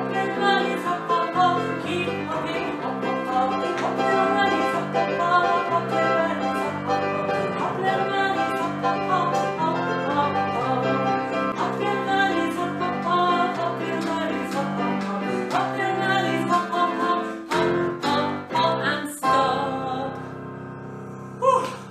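Upbeat song played on an electric keyboard, with a woman singing along. It ends on a final sharp chord near the end, then fades out.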